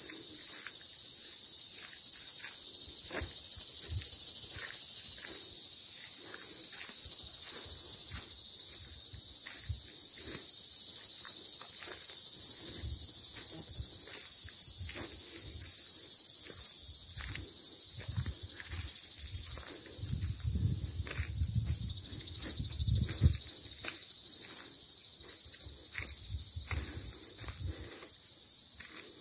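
A chorus of cicadas singing in a continuous, high-pitched drone that holds steady throughout, with faint knocks and rustles underneath now and then.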